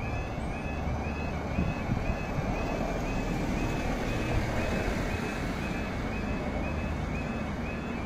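Level crossing warning alarm sounding, a short high warble repeating about three times a second, over a steady low rumble.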